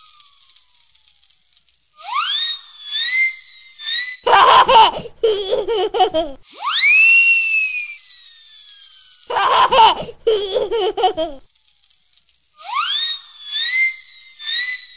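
A baby laughing and squealing in repeated bursts, with high pitch swoops between them. The same short sequence of squeals and laughs plays twice.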